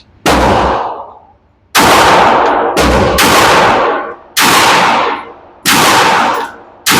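Seven shots from a 9mm Glock pistol in slow fire, about one a second, two of them closer together just before the middle, each ending in a trailing echo.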